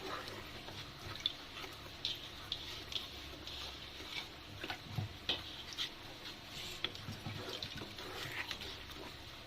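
Thick masala gravy paste frying in oil in a kadai, sizzling with scattered sputtering pops and spits.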